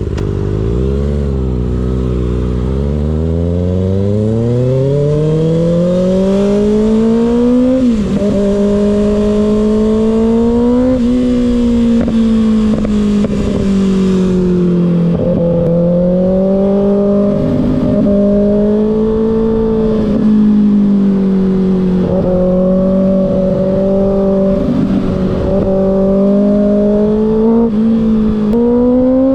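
2024 Kawasaki ZX-6R's 636 cc inline-four through a slip-on M4 exhaust under way: a long rising pull through the revs with a couple of quick upshift dips, then steady cruising with small swells in revs, pulling up again near the end.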